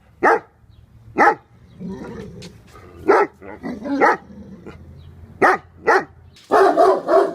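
A dog barking: loud single barks spaced about a second apart, some lower throaty sounds between them, then a quick run of barks near the end.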